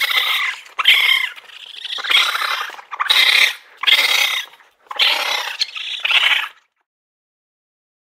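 An animal giving a run of about seven harsh, raspy screeching calls, each about half a second long, which stop a little past halfway through.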